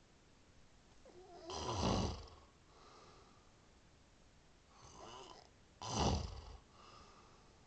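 A man snoring in his sleep: two loud snores about four seconds apart, each with a softer breath before it.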